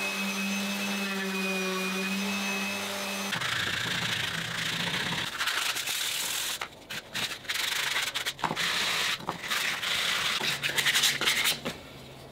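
Random orbital sander running with a steady hum as it sands a plywood handle; about three seconds in it gives way to hand sanding with a sanding sponge, uneven rasping strokes of abrasive on wood.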